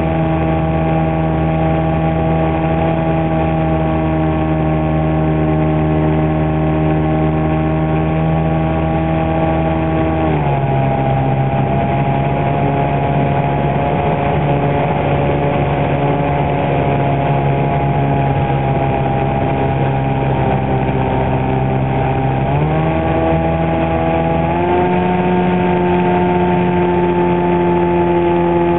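Radio-controlled foam airplane's motor and propeller running steadily, heard from a camera on board. The pitch drops about a third of the way in as the throttle is eased back, then climbs again in two steps near the end.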